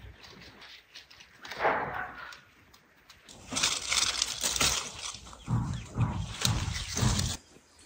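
Tomato plant leaves and stems rustling and brushing as ripe tomatoes are picked from the vines by hand. One short burst comes about two seconds in, then a longer, louder stretch of rustling with a few dull thuds that stops suddenly near the end.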